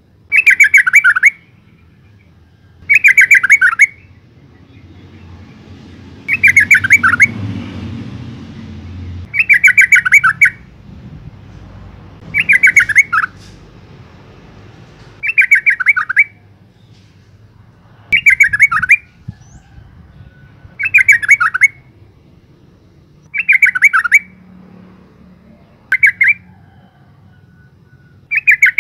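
Yellow-vented bulbul giving a bubbling chattering call, each about a second long, repeated about every two and a half seconds, eleven times in all. The call is offered as a female calling for a male, used as a lure to set captive male bulbuls singing.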